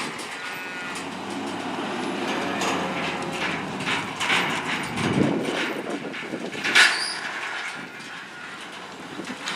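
Metal clanking and rattling of a livestock trailer as calves are unloaded, over a vehicle engine running, with a louder clatter about seven seconds in.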